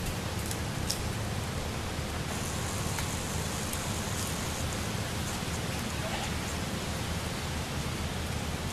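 A steady, even hiss of outdoor background noise, with a few faint clicks.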